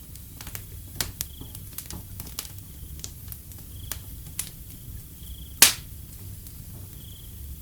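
Wood fire crackling, with scattered sharp pops and one much louder pop a little past two-thirds through, over a low steady rumble. A cricket chirps in short high bursts about every second and a half.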